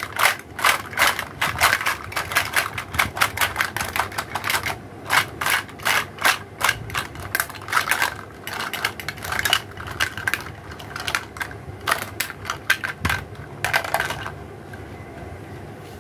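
Plastic toy fruit and vegetable pieces clattering and knocking against each other and a plastic basket as they are tipped out, in quick irregular clicks that stop near the end.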